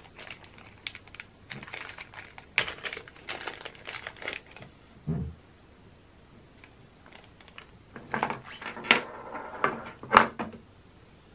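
Crinkling of a small clear plastic bag of parts and light clicks and taps of small metal vice parts being handled on a wooden table. These come in scattered clusters, with a soft thump about halfway and a louder run of clicks and crinkles near the end.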